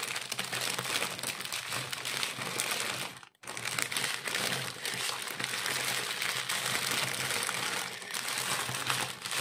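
Small plastic sachets of diamond-painting drills crinkling and rustling as they are handled and sorted by hand. The sound cuts out completely for a moment about three seconds in.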